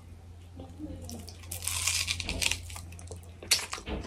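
Crunching, wet chewing of a bite of raw red onion, loudest in a rustly stretch about halfway through, with a few short crunches near the end.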